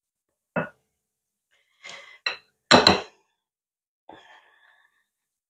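Potato masher working boiled potatoes in a glass bowl: a few irregular knocks and clinks of the masher against the bowl, the loudest about three seconds in.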